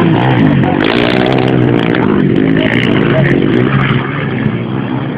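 Race ATV engines revving hard, the pitch rising and falling as they pass, louder for the first four seconds and then easing off.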